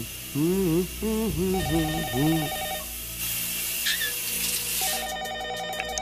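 A man sings wordlessly in the shower over the hiss of the running spray. About a second and a half in, a telephone starts trilling in quick pulses. The singing then stops, the shower spray swells, and the phone trills again near the end.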